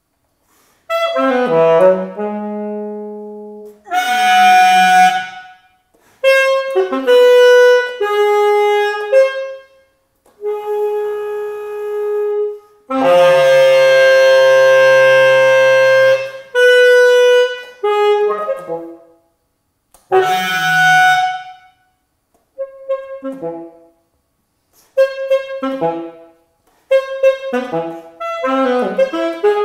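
Solo saxophone playing a microtonal piece: phrases of held notes with short silences between them, a long sustained note near the middle, and quicker, detached notes near the end.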